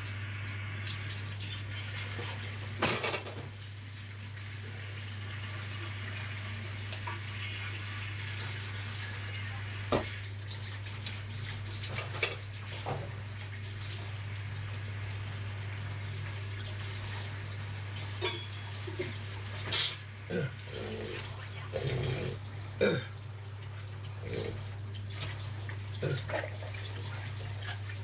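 Steady low hum and hiss, with scattered short clicks and knocks.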